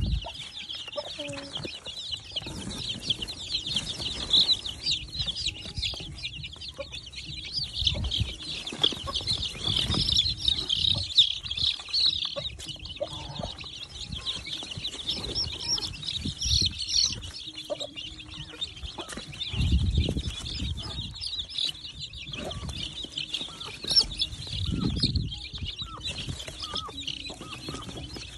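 A crowd of newly hatched chicks peeping continuously in high, overlapping chirps. A few low thuds and rustles come from a hand handling the chicks in a straw-lined cardboard box.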